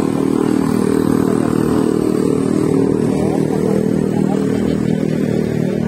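A motorcycle engine running steadily close by, a continuous low pulsing drone without a break.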